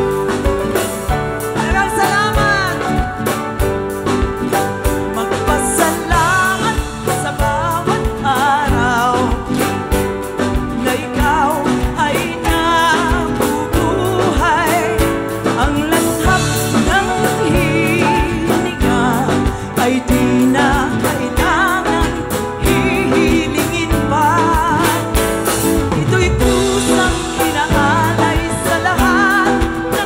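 Live band music: a woman singing with vibrato over a classical guitar, with drums keeping a steady beat.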